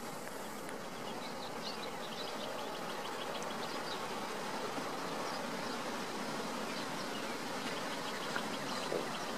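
Steady hiss of distant breaking surf, with repeated trains of faint, rapid high chirps from insects.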